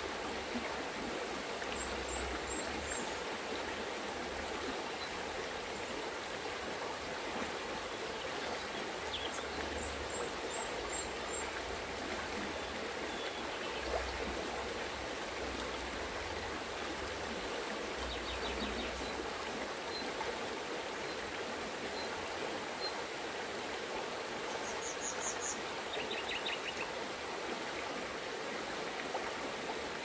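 Shallow mountain river flowing over stones and pebbles, a steady babbling wash of water. Several times, brief series of high bird chirps sound above it.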